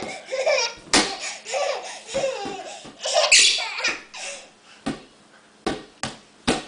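Large play ball bouncing and thudding several times, mostly in the second half, with laughter and a high squeal in the first few seconds.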